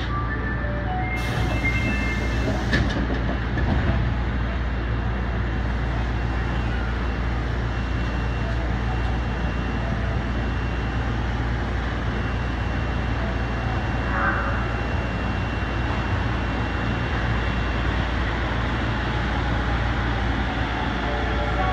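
Osaka Municipal Subway 25 series train heard from inside the car: a steady running rumble of wheels on rail through the tunnel, with a brief hiss about a second in.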